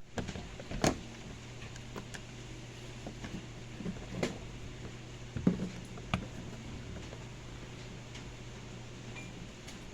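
Washing machine being tested: a steady low hum with a handful of short knocks and clicks, the loudest about a second in and again about five and a half seconds in.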